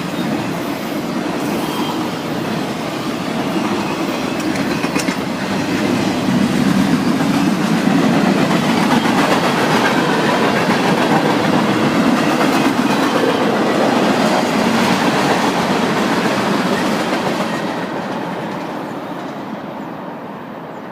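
CSX freight train rolling past on the track, a steady rumble and rattle of rail cars, loudest in the middle and fading away over the last few seconds.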